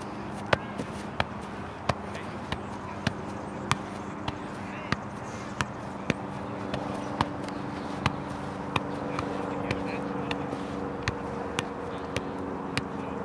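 A soccer ball being juggled: a steady run of sharp taps, about one and a half a second, each a touch of the ball on foot, knee or thigh. A steady low hum runs behind.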